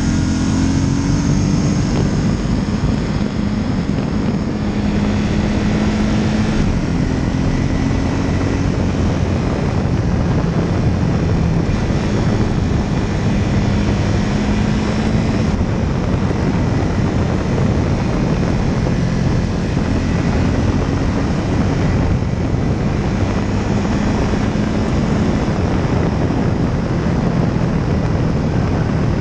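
Small propeller aircraft engine running steadily in flight, its pitch shifting slightly now and then, with heavy wind noise over the microphone.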